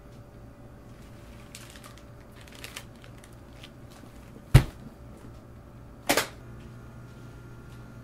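Hard-shell suitcase being packed: soft rustling of clothes and small clicks, then the lid shut with one sharp, heavy thud about four and a half seconds in, followed a second and a half later by a second sharp snap. A low steady room hum runs underneath.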